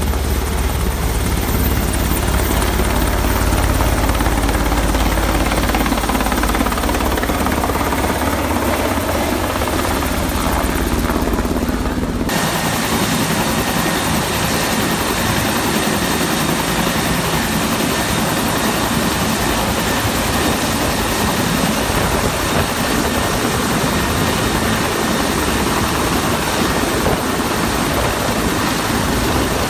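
Helicopter rotor and turbine noise from an H-60 Seahawk-type navy helicopter in flight. About twelve seconds in, the sound changes abruptly to another recording, with more hiss and a pulsing low rotor beat, as the helicopter comes in over the carrier's flight deck to land.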